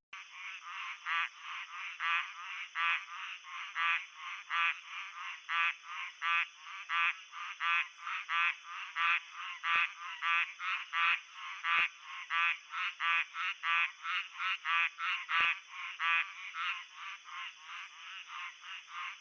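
Frogs calling in a steady, rapid series of short croaks, about two to three a second, over a steady high-pitched drone.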